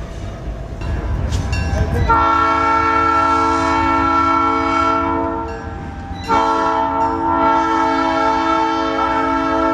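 A train's multi-chime air horn sounds two long, steady blasts, the first starting abruptly about two seconds in and the second after a short break near the middle. Before the horn there is a low rumble.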